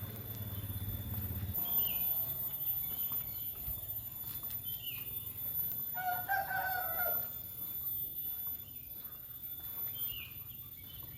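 A rooster crows once, a little over a second long, about six seconds in. Short high chirps come a few times before and after. A low hum stops about one and a half seconds in.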